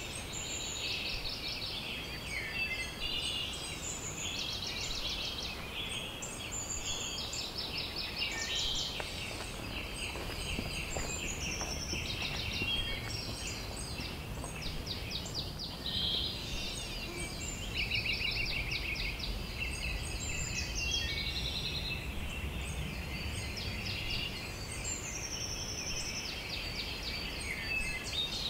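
Several wild birds singing and calling over one another, with many short rapid trills at different pitches, over a steady low rumble.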